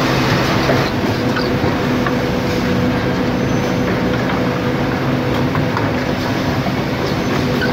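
Woodworking machinery on a panel-gluing production line running steadily: a continuous mechanical drone with a constant hum, as wooden strips feed through on rollers.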